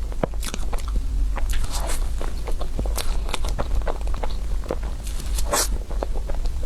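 Close-miked chewing and mouth sounds of someone eating a crepe roll dessert: a string of short, irregular wet clicks and smacks over a steady low hum.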